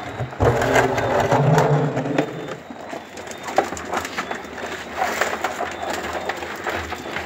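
Live crabs clattering and scrabbling against each other and the sides of a plastic barrel: a steady run of quick clicks and scratches. A louder low hum sits over the first two seconds.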